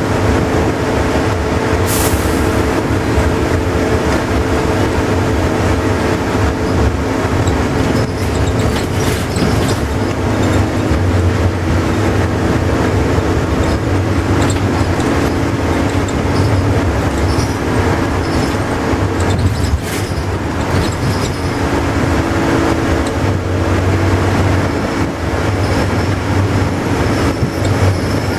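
Volvo double-decker bus cruising at steady speed, heard from inside the cabin: a continuous engine drone and road and tyre noise, with cabin rattles. A short sharp high sound about two seconds in.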